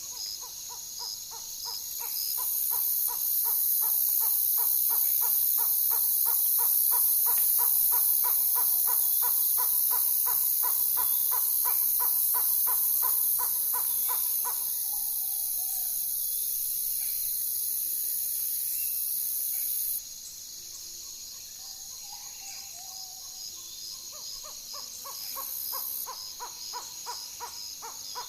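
An owl calling at night: a long, rapid, even trill of hoot-like pulses, broken by a few short falling calls. Behind it runs a steady high chorus of insects with regular chirps, and a louder high hiss that stops abruptly about twenty seconds in.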